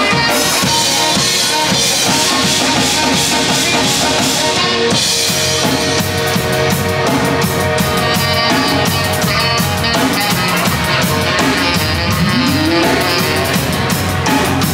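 Live band playing: a drum kit keeping a steady beat with bass drum and rimshots, under guitar and bass.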